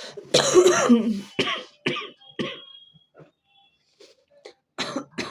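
A person coughing from a cold with phlegm settled in the chest: one long cough about half a second in, then several shorter coughs, and two more near the end.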